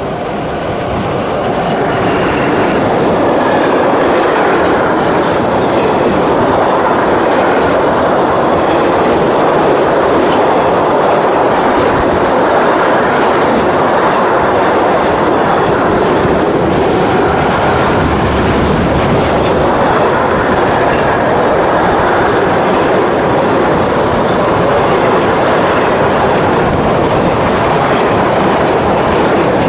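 Freight train of empty double-deck autorack wagons hauled by a DB Class 140 electric locomotive passing close by. The sound grows loud over the first few seconds as the locomotive arrives, then holds as a steady rumble with a rhythmic clickety-clack of the wagon wheels over the rail joints.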